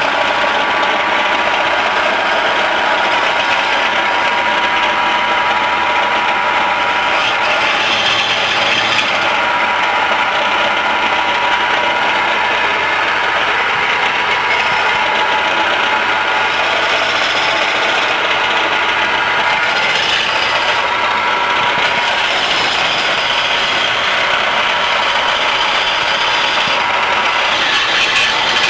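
Small electric-motor-driven wood lathe running steadily, with a hand-held turning tool scraping and cutting a spinning wooden spindle, a continuous rattling whir.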